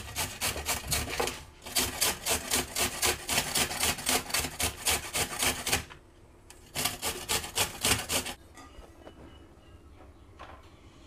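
Carrot grated by hand on the small holes of a flat metal grater: quick, even scraping strokes in three runs, with short breaks about two and six seconds in, stopping about eight seconds in.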